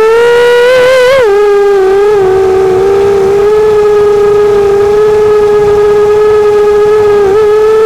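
Eachine Racer 250 quadcopter's four brushless motors and propellers whining, heard close up from the onboard camera. The pitch wavers and rises with the throttle in the first second or so, then holds steady, with a brief dip near the end.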